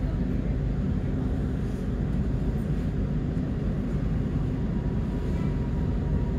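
Steady low rumble heard inside an HCMT (High Capacity Metro Train) carriage as the train moves off beside another HCMT set. A faint high whine comes in after about four seconds.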